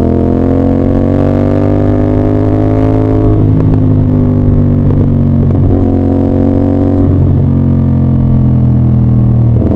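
CF Moto 450SR-S parallel-twin engine and exhaust running under way at steady revs, its pitch easing slightly at first, with a few brief breaks in the note from about three seconds in.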